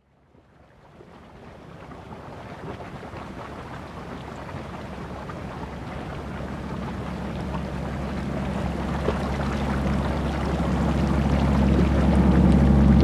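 Boiling hot springs and steam vents of a hydrothermal basin: a steady rushing noise with a low rumble beneath, fading in from silence and growing louder throughout.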